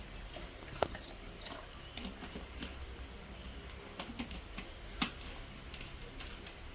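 Scattered light clicks and taps of kitchen containers and utensils being handled, with two sharper knocks, one about a second in and one about five seconds in.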